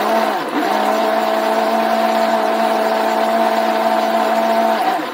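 Electric countertop blender motor running at a steady pitch, mixing cooking oil with dissolved caustic soda (lye) into soap batter. The pitch sags briefly just after the start, and the motor switches off near the end.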